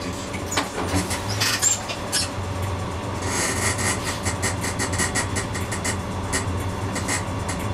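Comeng A-class tram running, with a steady low hum. From about three seconds in comes a quick run of clicks and rattles.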